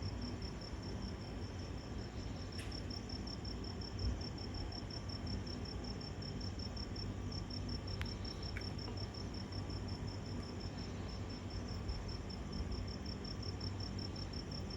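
Crickets chirping in an even, fast pulse, several chirps a second, over a low background hum. There is a soft low thump about four seconds in. No thunder is heard.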